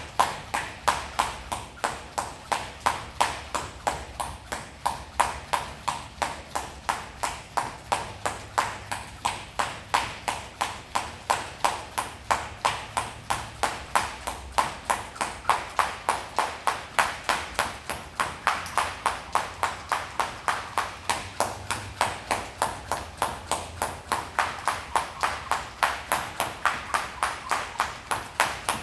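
Jump rope being skipped in a steady, even rhythm, each turn of the rope striking the floor with a sharp slap, about three a second.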